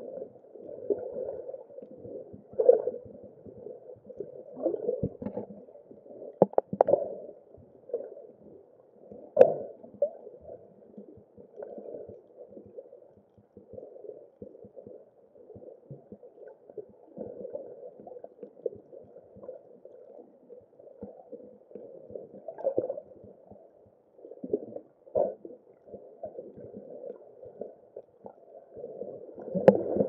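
Muffled underwater sound picked up through a camera's waterproof housing: a steady mid-pitched wash of water with irregular gurgles and knocks, the loudest about nine seconds in.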